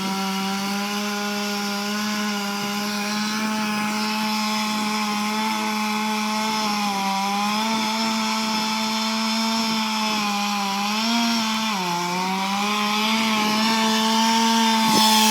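Chainsaw running at full throttle, cutting into a tree trunk; its pitch dips briefly under load twice, most clearly about twelve seconds in, then recovers.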